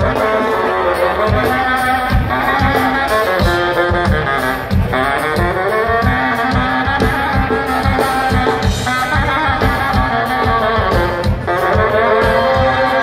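Live band with horns playing loud through a large open-air PA, heard from within the crowd: brass carries the melody over a steady drum beat and bass.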